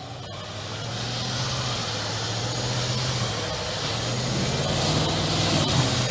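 Audi A8 Quattro driving through deep snow: a steady engine drone under load with a hiss of the tyres churning through snow and slush, building over the first second or so and then holding.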